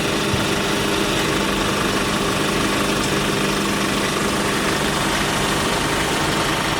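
Kia car engine idling steadily, an even hum with a hiss over it.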